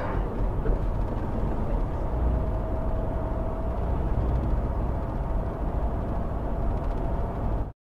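Steady road and engine rumble inside a car's cabin as it drives at about 40 mph, with a faint steady hum above it. It cuts off abruptly near the end.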